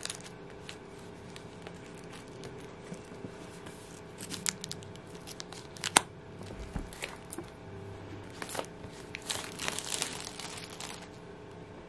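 Thin plastic shrink wrap being torn and peeled off a cardboard box, crinkling, with one sharp snap about halfway through and a denser run of crinkling near the end.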